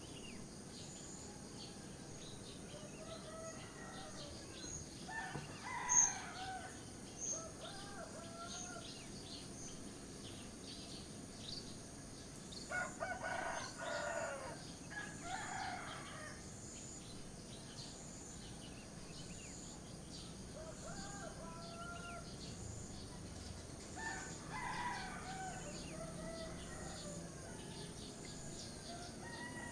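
Roosters crowing several times, the loudest crows around halfway through, over small birds chirping and a steady high-pitched drone.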